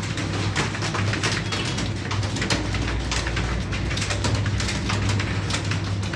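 Computer keyboards being typed on fast: dense, irregular key clicks, several a second, over a steady low electrical hum.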